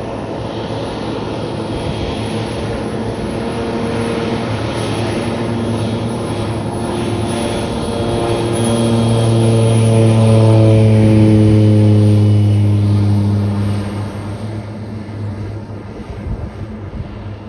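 Floatplane's propeller engine at takeoff power as it runs across the water on its floats and lifts off. It grows louder to a peak about ten seconds in, its pitch drops as it passes, then it fades as it climbs away.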